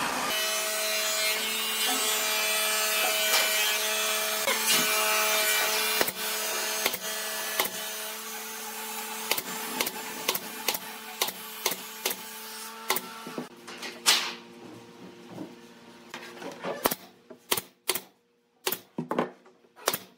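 Pneumatic brad nailer firing a series of sharp clacks as wood strips are nailed to a table frame's rails, mixed with knocks of the strips being handled. A steady hum sits underneath for the first two-thirds and then drops away, leaving the clacks standing out near the end.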